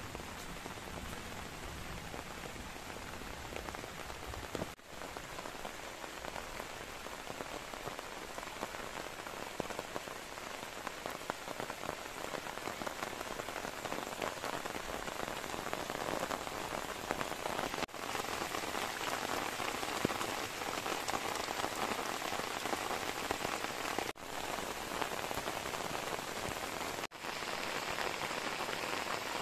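Steady rain falling, an even dense hiss that grows a little louder in the second half and cuts out briefly four times.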